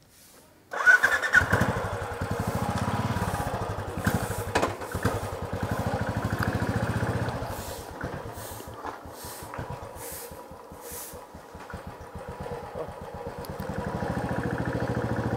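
Royal Enfield single-cylinder motorcycle engine started about a second in, catching at once. It then runs with an even thump, a little quieter in the middle and louder again near the end.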